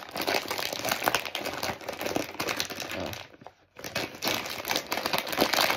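Crinkly chip bag being pulled open, crackling and rustling in the hands, with a short pause about three and a half seconds in.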